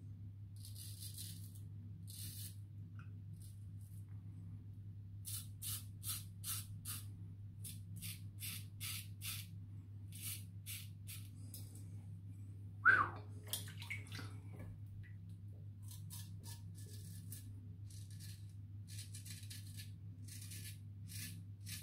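Razorine Flatboy double-edge safety razor with a Kai blade scraping through lathered stubble: faint, crisp scrapes in short runs of several a second, over a steady low hum. There is one brief louder sound about two-thirds of the way through.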